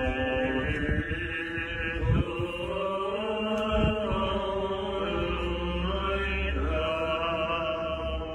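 Orthodox liturgical chant: voices singing held, slowly moving notes without a break.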